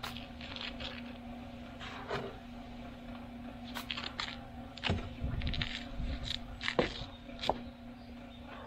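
Steel trowel scraping and tapping against mortar and granite Belgian blocks in short, irregular strokes as the mortar along the border is trimmed and tooled. A faint steady hum runs underneath.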